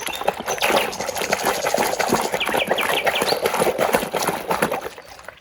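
Splashing and scrubbing in water as a muddy plastic toy is washed, with many small knocks and clicks. Birds chirp faintly about halfway through.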